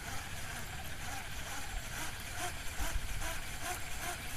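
Wind rumbling on the microphone over a steady outdoor hiss, with faint short chirps repeating every fraction of a second.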